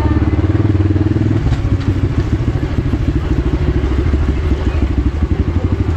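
Motorcycle engine running under way; its note drops about a second and a half in and carries on lower and more pulsing.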